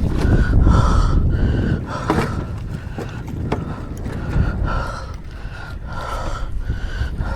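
Spinning reel being cranked fast on a lure retrieve, a whirring that pulses about twice a second, over low wind rumble on the microphone that eases off about two seconds in.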